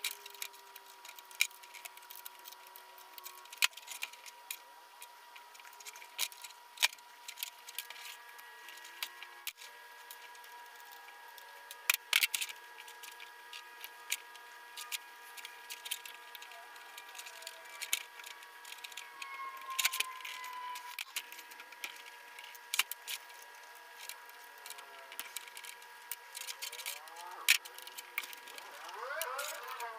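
Sporadic small clicks and metallic taps of a screwdriver and small loose parts as screws are backed out of a Suzuki GSX-R fuel pump assembly, with a few short rising squeaks near the end. A faint steady high whine sits underneath.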